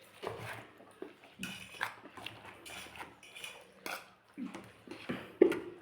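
Eating sounds close to the microphone: cutlery clinking against a dish amid chewing, in a string of short irregular clicks and smacks, the sharpest one near the end.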